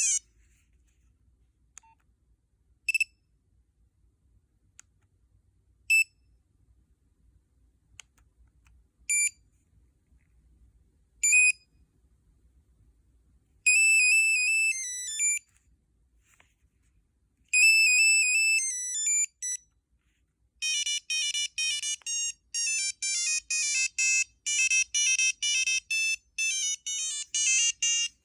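Nokia 6340i cellphone playing its electronic ringtones one after another. First a single short beep about every three seconds, then a short melodic phrase played twice, then a fast, busy tune of many quick notes from about twenty seconds in.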